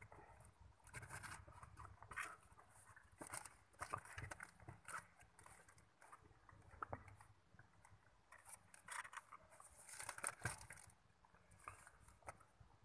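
Faint, irregular rustling, scraping and small clicks of paper packaging lining a cardboard box, as a mother cat and her kittens shift about on it.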